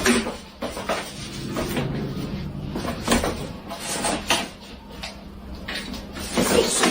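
A series of irregular knocks and clatters, like a cupboard or door being handled, over a steady low hum.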